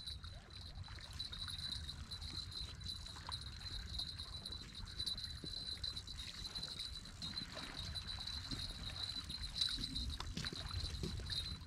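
Wind rumbling on the microphone, with a steady faint high tone and scattered light ticks.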